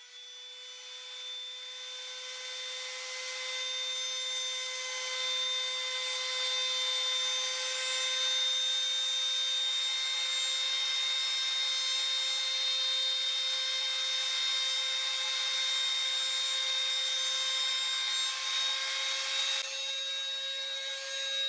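Trim router in a router table running with a round-over bit: a steady high whine over a rasping hiss as a thin square wooden stick is fed past the bit, its corners cut off to round it into a rod. The cutting hiss builds over the first few seconds and eases near the end.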